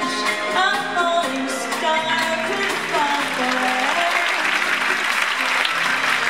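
Performance music with a melody line carries on while audience applause swells up from about halfway through and grows.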